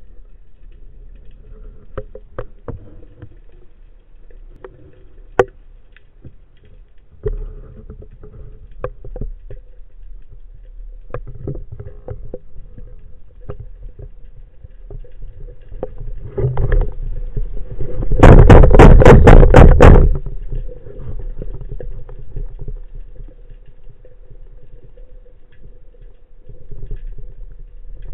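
Underwater sound picked up through an action-camera housing on a freedive: scattered clicks and crackles over a low rumble and a faint steady hum. About two-thirds of the way through, a loud rapid rattle lasts about two seconds.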